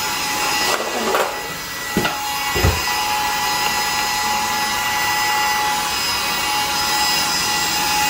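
Cordless handheld vacuum cleaner running with a steady whine, with a couple of knocks about two seconds in.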